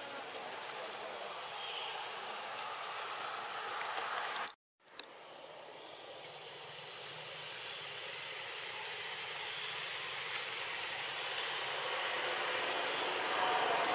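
Steady outdoor background hiss with no distinct source, which drops out to silence for a moment about four and a half seconds in, then returns and slowly grows louder.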